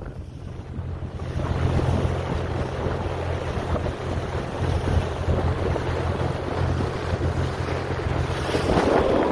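Small motorboat under way at speed: a steady low engine hum under heavy wind buffeting on the microphone and the rush of water from the hull and wake. Near the end the hum fades beneath a louder gust of wind noise.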